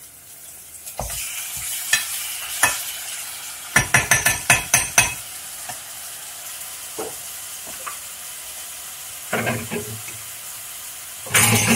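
Raw chicken pieces hit hot oil with sautéed garlic and onion in a frying pan and start sizzling about a second in, then fry with a steady sizzle. Midway there is a quick run of about seven knocks against the pan, and a louder clatter near the end.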